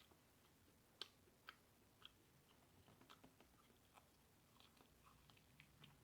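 Faint close-up sounds of a person chewing food: small wet clicks and smacks of the mouth, with a couple of sharper ones about a second and a second and a half in, and a busier run in the second half.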